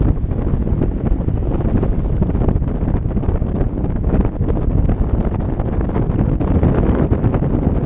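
Strong wind buffeting the microphone in uneven gusts, with waves washing over the reef edge underneath.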